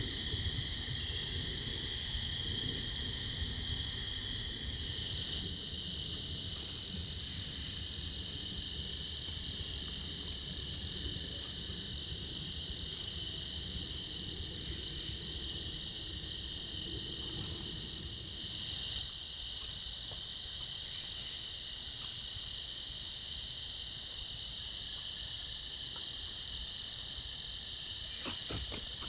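Night chorus of crickets, a steady high-pitched trilling that never lets up, with a low rumble under it for the first few seconds and a few faint clicks near the end.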